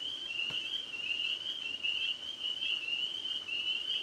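A chorus of tree frogs trilling in a maple tree: many high-pitched trills overlapping into a steady wall of sound. A faint click comes about half a second in.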